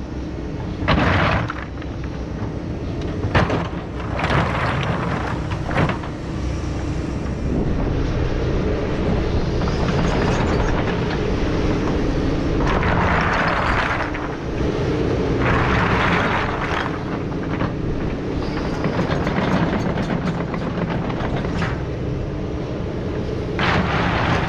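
A Takeuchi TB2150 excavator's diesel engine running under load while it works rock, with repeated bursts of rock scraping and clattering against the steel bucket, each lasting about a second.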